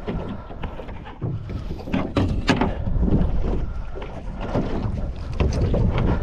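Water slapping and lapping against the hull of a small boat drifting at sea, with wind on the microphone and a few sharp knocks about two seconds in.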